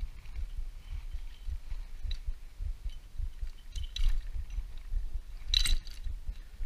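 Light metal clicks and clinks of engine parts being handled, the loudest about five and a half seconds in, over a low rumble of handling noise.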